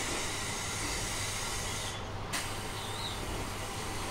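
Compressed air hissing out of a JR 719 series electric train's air system. The hiss breaks off about two seconds in and starts again a moment later, over a steady low hum.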